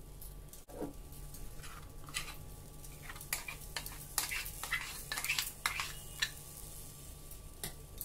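Steel spoon scraping and clinking against a steel frying pan and a bowl as stuffing is spread and thick batter is scooped over it: a quick run of scrapes and taps in the middle, one more near the end, over a low steady hum.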